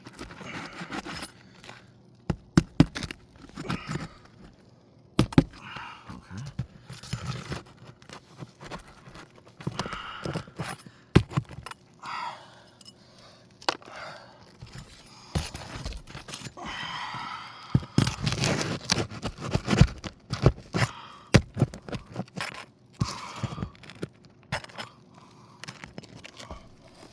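Metal roof snake scraping and prying under 3-tab asphalt shingles, with irregular sharp knocks, cracks and tearing as the sealed shingles break loose and nails are worked out. The knocks come thickest and loudest a little past the middle.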